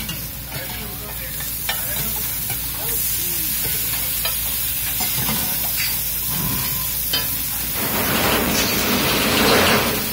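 Egg masala frying on a hot flat iron griddle (tawa), sizzling steadily while a slotted metal spatula stirs it and scrapes and taps on the metal in scattered clicks. The sizzle grows louder near the end.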